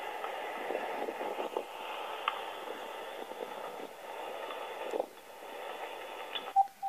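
Recorded train noise, which he takes for a South Shore Line train, played back through a VTech cordless phone handset's speaker as a thin, phone-band rushing sound that stops about six and a half seconds in. Short, evenly spaced beeps from the handset start right after.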